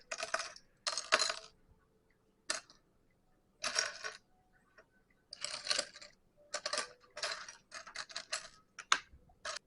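Loose plastic Lego pieces clattering as a hand rummages through a pile, in short bursts with pauses between, while searching for a particular piece.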